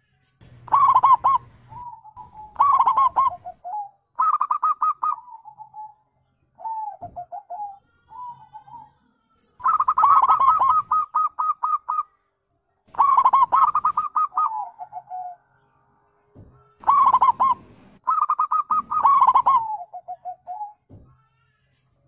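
Zebra dove (perkutut) singing: repeated phrases of rapid staccato cooing notes, each trailing off into a lower purring tail, with short pauses between phrases.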